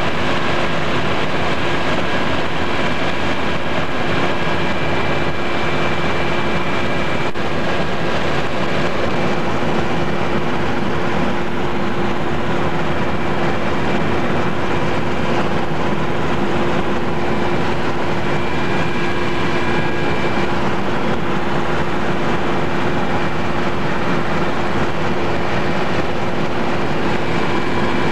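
Steady drone of an aircraft's engine heard inside the cabin: a constant level with an unchanging hum.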